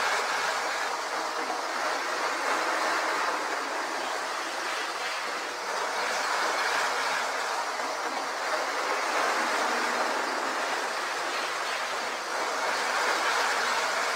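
Two Hornby model electric trains running together at full speed on the track: a steady whirr of their small electric motors and wheels running on the rails.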